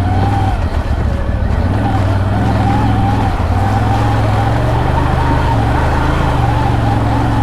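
CF Moto CFORCE 1000 Overland ATV's V-twin engine running steadily while riding a trail: a low drone with a higher whine above it, its pitch wavering a little with the throttle.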